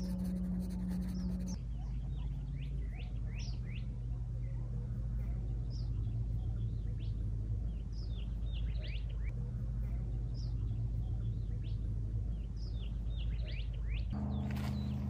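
Small birds chirping: many short, quick sweeping calls, scattered irregularly, over a low steady hum.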